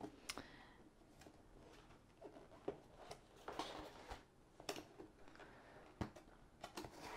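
A long cardboard kit box being handled and turned over on a wooden tabletop: quiet, scattered taps, knocks and rustles, with a few sharper knocks about three, five and six seconds in.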